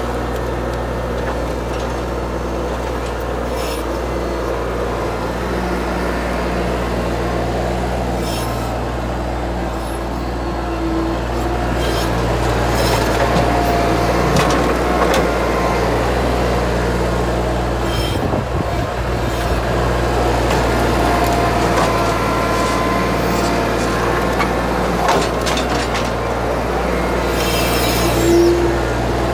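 New Holland TC30 compact tractor's three-cylinder diesel engine running steadily as the front loader works, getting louder about twelve seconds in. Scattered clanks and knocks are heard over it.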